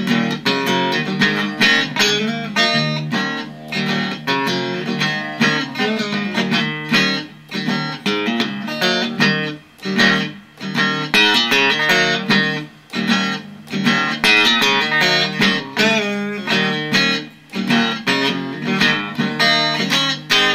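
Solo electric blues guitar playing an instrumental stretch between sung lines: a driving, rhythmic figure of picked notes and chords that dips briefly a few times.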